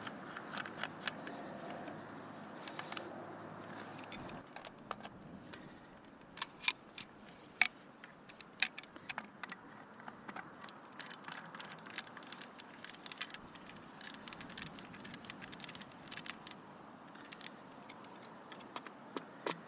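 Plastic and brass hose fittings clicking and scraping as they are handled and screwed together by hand, with irregular sharp clicks and a few louder knocks of parts against each other.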